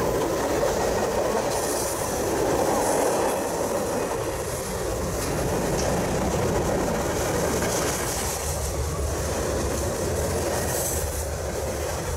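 Freight cars of a short train rolling past on curved track: a steady rumble of wheels on rail, with a high hiss and squeal from the wheels coming and going.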